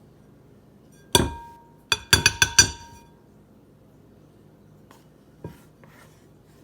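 A measuring cup knocked against the rim of a mixing bowl to shake out cocoa powder: one ringing clink, then five quick clinks in a row about a second later.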